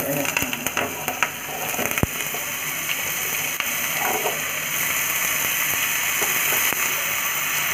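Sliced button mushrooms dropped into hot oil and tempering spices in a stainless steel pot: a few pieces knock against the pot in the first two seconds, then a steady frying sizzle that grows slightly louder.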